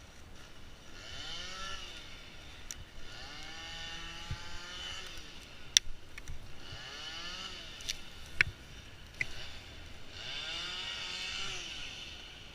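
Chainsaw engine revving up and dropping back four times, its pitch rising and falling with each rev. A few sharp knocks come in the middle, the loudest about halfway through.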